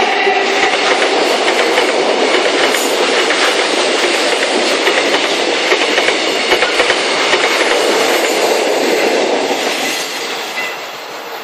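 A long freight train of open-top wagons rolling past close by, its wheels clicking steadily over the rail joints. The noise falls away about ten seconds in as the last wagon passes.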